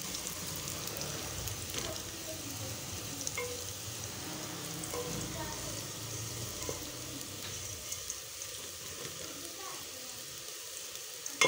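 Sliced bitter gourd sizzling as it fries in oil in a metal pot, stirred with a spatula that scrapes and clicks against the pot. A single sharp knock comes near the end.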